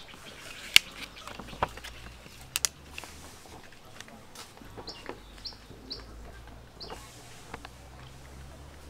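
A few sharp clicks and taps from a dry rice paper wrapper being handled over a metal tray, the loudest about a second in and a quick pair near three seconds. Several short, high bird chirps come in the middle.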